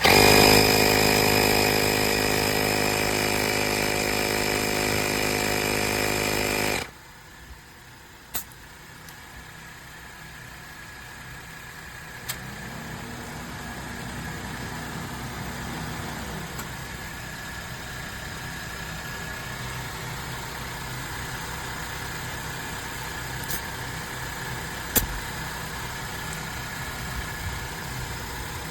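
Portable 12 V air compressor (tyre inflator) starting up and running loudly with a steady buzzing drone for about seven seconds, then cutting off suddenly. After that a much fainter steady hum remains, with a few light clicks.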